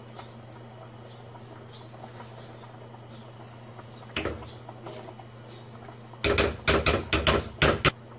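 A spoon knocking against a rim to shake off peanut butter: one sharp knock about four seconds in, then about seven quick, loud knocks over a second and a half near the end. Under it, a low steady hum and the faint patter of the simmering pot.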